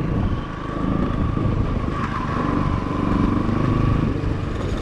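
Bajaj Pulsar NS200's single-cylinder engine running steadily as the motorcycle rides along a gravel road, heard from the rider's seat.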